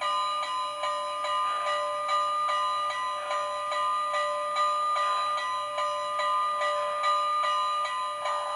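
Recorded steam locomotive bell clanging steadily at about two and a half strikes a second, played through the sound system of an MTH HO GS4 4-8-4 model as part of its station-arrival announcement sequence.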